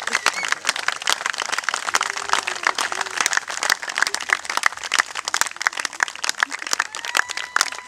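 A small crowd applauding, with many separate hand claps in a dense, uneven patter and a few voices faintly underneath.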